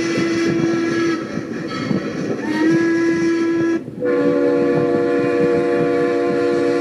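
Train horn blowing over the steady running noise of a moving train: one blast ends about a second in, a short blast follows, and a longer blast of several notes together starts about four seconds in and is still sounding at the end.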